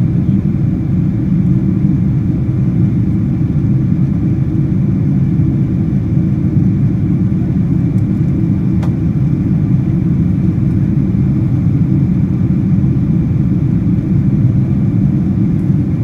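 Steady low rumble of a jet airliner in cruise heard inside the cabin, the engines and the air rushing past the fuselage making an even drone.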